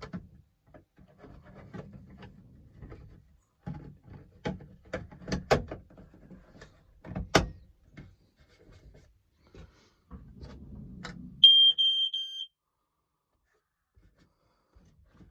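Clicks and knocks of a smoke alarm being handled, then a single loud, high-pitched smoke alarm beep lasting about a second, about three-quarters of the way through.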